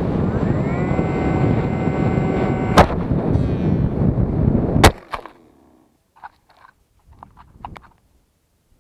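Air rushing over an electric R/C plane's onboard camera with the motor whining and rising in pitch about a second in, until a sharp crack near three seconds in cuts the motor off: the mid-air collision. Rushing air continues as the plane falls, then a loud crash just before five seconds as it hits the ground, followed by a few faint rustles and clicks.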